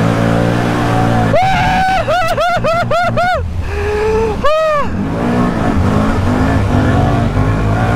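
ATV engine running hard under throttle while driving through water in a corrugated metal culvert, with spray hissing over it. Over the engine, a quick run of about five high-pitched whoops comes about a second and a half in, and one more follows shortly after.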